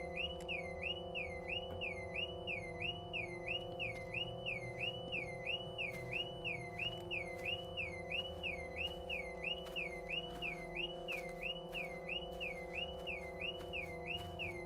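Car alarm wailing, a high tone that rises and falls over and over, about two cycles a second, over a steady low drone.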